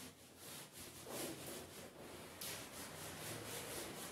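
Handheld whiteboard eraser wiping marker off a whiteboard in quick, repeated back-and-forth strokes: a faint rhythmic rubbing.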